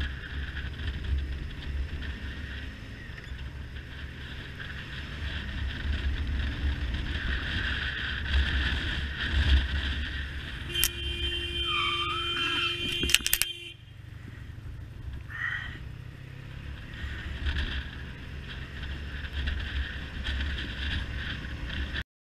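Motorcycle riding with heavy wind rumble on the microphone. About eleven seconds in, a squeal lasting two to three seconds as the rear brake locks the rear tyre and it skids, cut short with a click. Then the wind noise drops as the bike slows.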